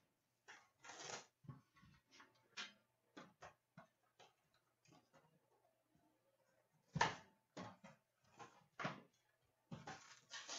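Intermittent rustling, scraping and light tapping of cardboard and packaging as a jumbo box of hockey cards is opened and its packs handled, with a louder rustle about seven seconds in.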